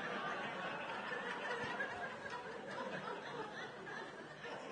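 An audience laughing and chuckling, the laughter dying away slowly.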